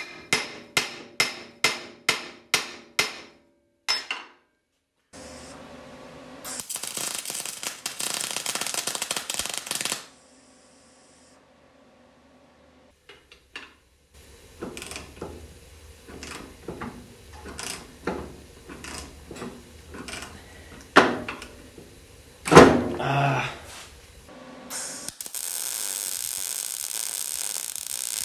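Hammer striking a steel punch on a Camaro front spindle clamped to a steel welding table: about eight quick blows in the first few seconds, then one more. Further clanks and knocks follow, two of them loud, as the part is worked on. Near the end a welder starts and runs with a steady crackle.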